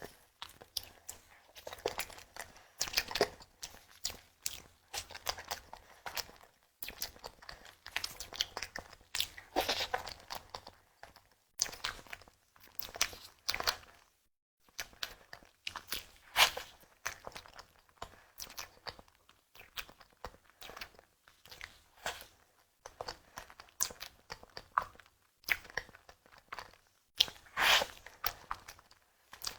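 Close-miked eating: repeated bites and chewing, with crisp crunching clicks in irregular clusters broken by short pauses.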